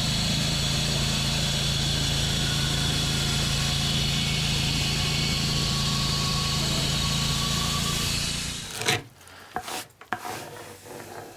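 Wood-Mizer band sawmill running steadily while slabbing maple burl, its engine holding a constant hum. About eight and a half seconds in the sound cuts out, followed by a few sharp knocks.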